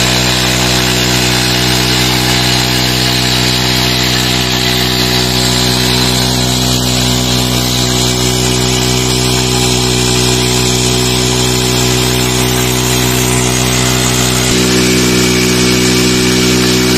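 A Honda CD 70 motorcycle's small single-cylinder four-stroke engine runs steadily at constant speed, belt-driving a tubewell water pump under load. Near the end its speed and loudness rise slightly.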